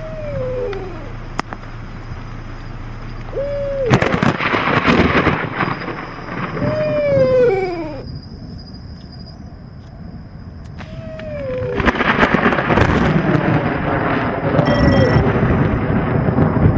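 Horror sound effects: thunder rumbling in two long rolls. Short calls that fall in pitch sound every few seconds.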